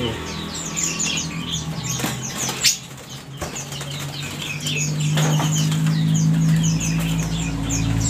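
Many caged songbirds chirping and twittering in quick short notes, with a few sharp rustles and wing flaps in the cages. A steady low hum comes in about halfway through.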